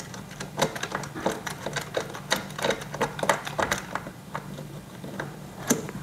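Irregular metallic clicks and clinks of a hex key and steel bolts as armrest bolts are started and turned by hand, thinning out near the end, over a steady low hum.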